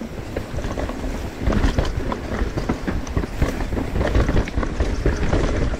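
Mountain bike descending a dirt singletrack: wind buffeting the microphone and tyres rumbling over dirt and roots, with rapid clattering and knocks from the bike over bumps.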